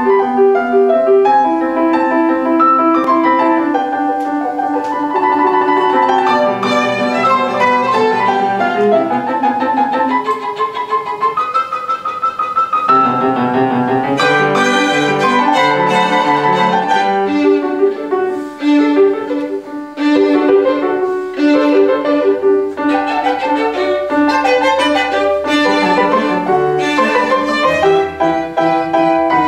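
A violin and a grand piano playing a classical sonata together, the violin carrying the melody over the piano. It opens with longer held notes and moves into quicker passages.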